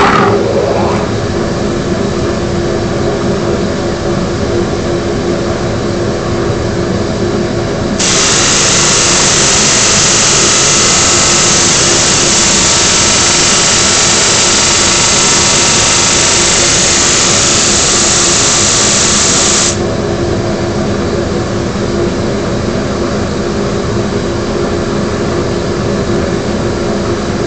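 Homemade 20-inch disc sander and dust collector running with a steady hum. From about 8 s to about 20 s a loud, even hiss joins it as wood is ground against the 80-grit disc, starting and stopping abruptly.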